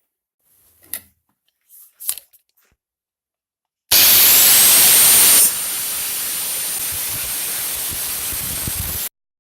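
Electric belt-sander motor switched on, a loud hissing rush with a thin high whine that rises as it spins up about four seconds in. About a second and a half later the rush drops sharply in level, then runs steadily until it cuts off suddenly near the end. Two light knocks come before it starts.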